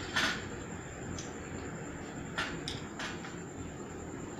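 A few brief, soft rustling handling noises as dry-fruit garnish is added to a bowl of kheer: one just after the start and a small cluster about two and a half to three seconds in.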